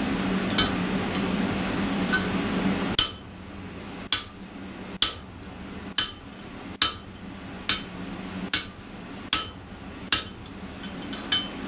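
Blacksmith's hand hammer striking hot 12 mm square mild steel bar on the anvil, fullering it down: about ten sharp, ringing blows a little under a second apart, starting about three seconds in. Before the blows there is a steady low hum.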